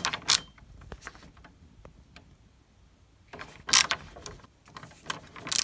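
Robertson screwdriver tightening the terminal screw on a 30 amp double-pole circuit breaker: metal clicking and scraping in short bursts, a few at first, then after a quiet stretch, more about three and a half and five seconds in.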